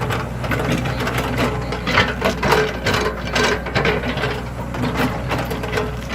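Excavator at work: its diesel engine runs with a steady low hum while the bucket and arm give irregular clanks, knocks and scraping several times a second.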